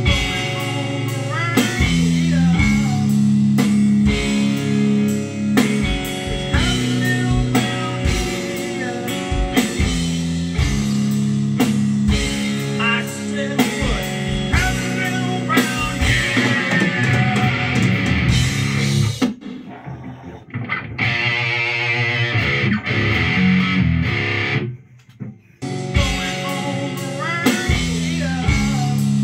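Rock song playing back over studio monitors: electric guitar over drums and bass, starting suddenly. About two-thirds of the way through the band drops out to a wavering held guitar tone and a brief near-gap, then the full band comes back in.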